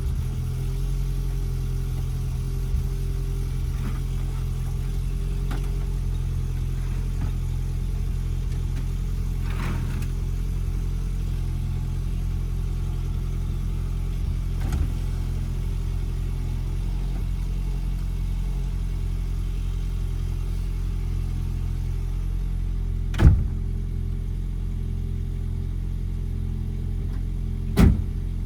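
Toyota Prius idling steadily after start-up, its engine giving a constant low hum. Two sharp knocks come near the end.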